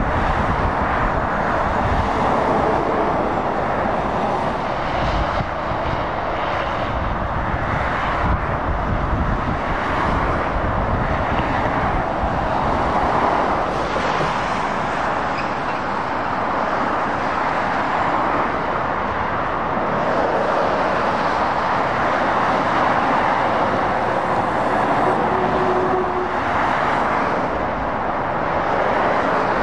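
Motorway traffic: lorries and cars passing on a wet dual carriageway, a continuous rush of tyre and engine noise that swells as each vehicle goes by.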